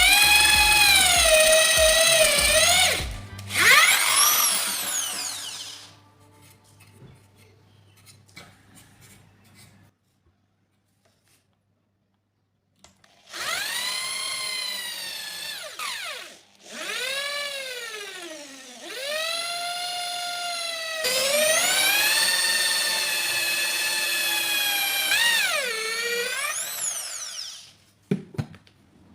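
A small power tool's electric motor whining, its pitch dipping and recovering as the load on it changes. It runs in several spells with a long quiet gap in the middle, and there are a few clicks near the end.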